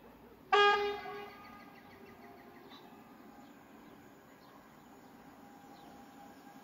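Train horn from the approaching EN62A electric multiple unit: one short toot about half a second in, dying away within a second.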